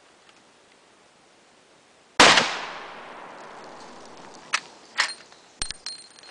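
A single loud shot from a Marlin 1895 Guide Gun lever-action rifle in .45-70 about two seconds in, with a long echoing tail. It is followed by a few sharp metallic clacks as the lever is worked to eject the spent case and chamber the next round.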